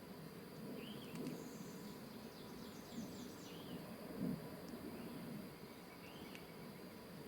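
Wild songbirds singing at a distance: a short arched note repeated every couple of seconds, with a quick run of high falling notes early on, over faint outdoor background noise.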